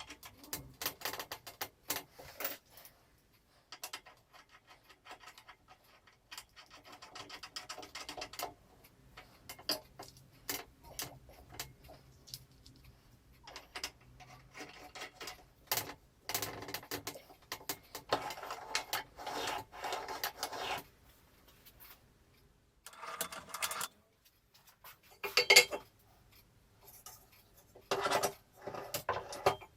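Metal parts of a bench drill press clinking, rattling and scraping as they are handled and fitted together by hand, in short irregular bursts with a sharper knock near the end.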